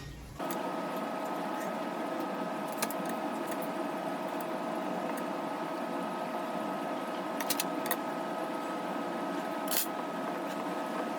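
A small electric motor running at a steady speed with a constant pitch. It starts abruptly just under half a second in, with a few faint clicks over it.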